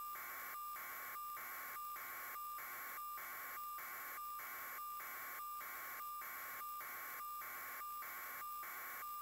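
Faint steady electronic static hiss with a thin high tone in it, broken by brief, evenly spaced dropouts about every 0.6 seconds.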